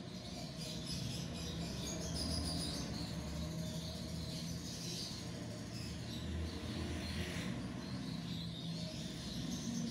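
Soft, steady sizzling hiss of chicken masala cooking in oil in an aluminium pot, over a low, even hum.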